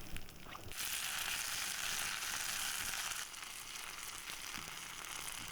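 Potatoes and mushrooms frying in a pan, sizzling. The sizzle starts about a second in, is loudest for the next couple of seconds, then settles a little lower.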